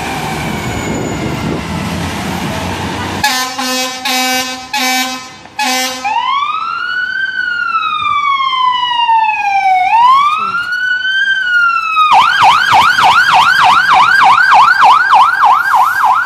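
A fire truck leaving quarters: an engine rumble first, then several short air-horn blasts, then the electronic siren winding up and down twice in a slow wail before switching to a fast yelp of about four cycles a second.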